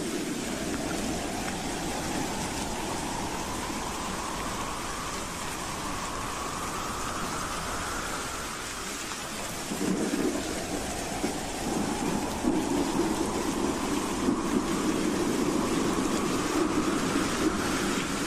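Howling wind: a steady rushing noise with two slow howls, each rising in pitch over about eight seconds. The second howl, starting about halfway through, is louder.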